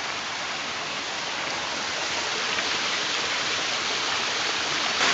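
Steady, even rush of running creek water.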